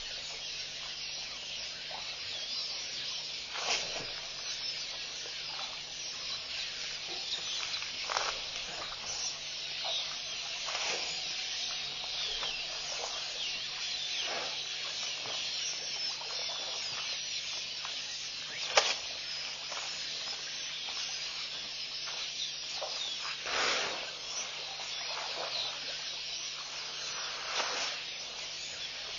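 Dense chorus of birds chirping, high-pitched and unbroken, with a few louder short sounds standing out, the sharpest about two-thirds of the way through.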